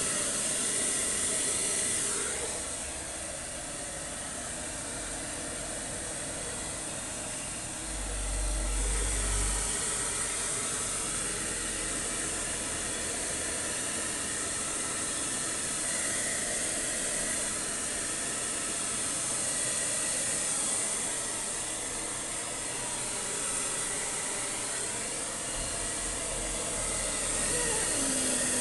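Handheld electric hair dryer blowing steadily while it dries a dog's fur, a constant airy hiss that drops a little about three seconds in and comes back up near eight seconds.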